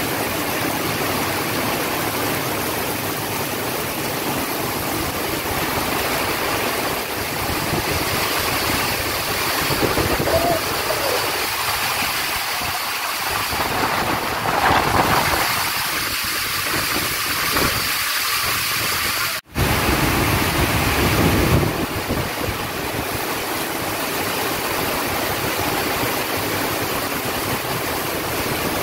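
Heavy rain pouring down in a steady, dense hiss, pelting the parked cars and ground. The sound cuts out for an instant about two-thirds of the way through, then carries on.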